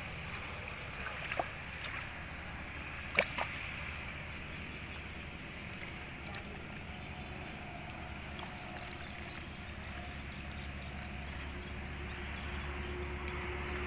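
Pond water sloshing and trickling around a person wading and moving their arms through it, with a sharp knock about three seconds in and a smaller one a second and a half before.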